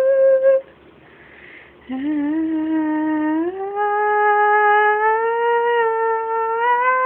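A woman humming long, held notes. She breaks off about half a second in, then starts again low and steps upward in pitch over several sustained notes.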